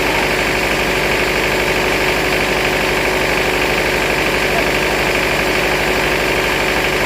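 Vertical band sawmill running steadily: a continuous machine drone with one held tone and a fast low pulsing, unchanging throughout.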